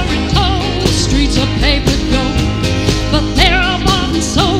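A woman singing with vibrato, accompanied by strummed acoustic guitars in a steady rhythm with a low bass line underneath.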